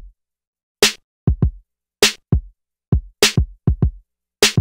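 Intro music: a sparse drum-machine hip-hop beat of deep, booming kick drums and a sharp snare hit about every second and a bit, with no melody.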